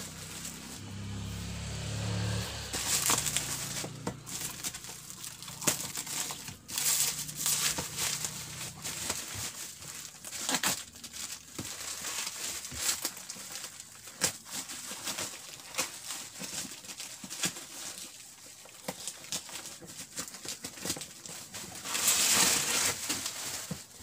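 Plastic bubble wrap being crinkled and pulled off a cardboard box, with crackling and rustling throughout and a louder burst of rustling near the end.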